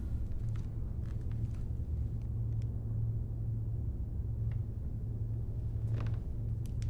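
Steady low rumbling hum of background room tone, with a few faint, soft clicks scattered through it.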